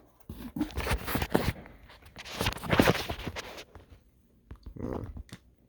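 Packaging and paper rustling and scraping as items from the box are handled close to the microphone, in a string of bursts with a shorter one near the end.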